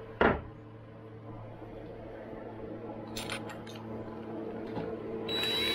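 Tool handling on a plywood workbench: a sharp knock about a quarter second in, a few light clicks about three seconds in, and a brief whir near the end as a DeWalt cordless drill is readied with a new bit, over a steady low electrical hum.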